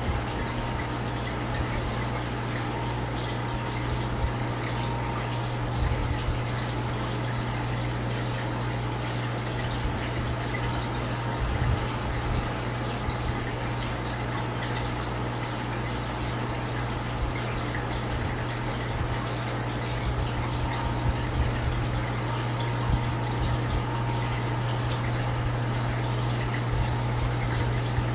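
Aquarium pump running: a steady low hum with trickling water.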